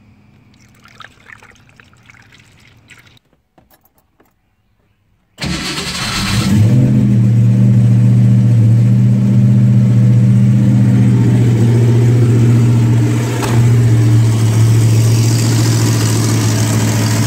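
Ford Mustang's 5.0 V8 starting about five seconds in and settling into a steady fast idle, run with a funnel on the open radiator to bleed air out of the cooling system. Before it, a faint trickle and clatter of coolant being poured into the funnel.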